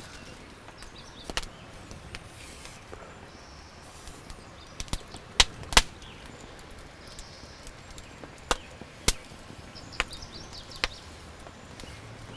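Scattered sharp wooden clicks and knocks, nine or so, the loudest two close together about halfway through, as a wooden arrow shaft is handled and bent straight. Faint high bird chirps come now and then in the background.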